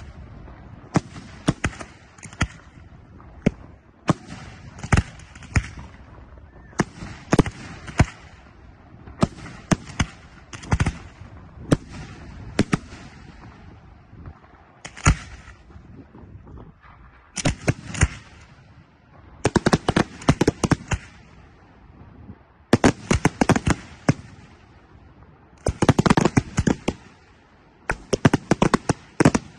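Aerial firework shells bursting overhead: single bangs about once a second, then from about the middle on, quick volleys of many reports in close succession.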